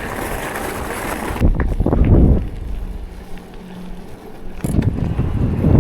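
Wind buffeting the microphone and rumble from a bicycle riding along a trail. The noise changes abruptly about a second and a half in, quietens, and the rumble builds up again near the end.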